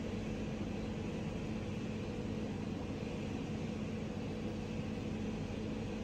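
Steady machine hum with a constant hiss, unchanging throughout, the kind of drone given off by running appliances or air conditioning.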